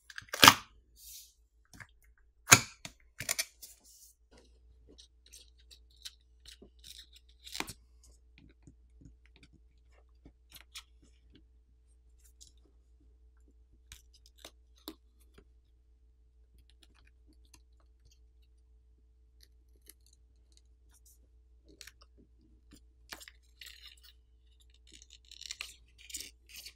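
Suction cup and plastic pry pick working the adhesive-held plastic back plate off a smartphone. A few sharp clicks in the first few seconds are followed by faint ticks and scrapes, with a longer scratchy stretch near the end as the pick slides along the edge.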